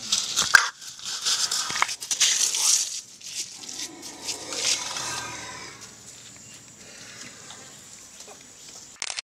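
A baby elephant close to the microphone: knocks and scuffling as it bumps about, then one drawn-out pitched call lasting a couple of seconds, about four seconds in. Insects buzz faintly behind.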